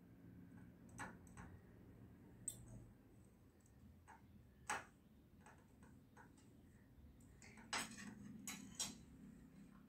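Faint scattered clicks and short scrapes of a spoon spreading butter on slices of bread on a plate, with a cluster of scrapes about eight seconds in.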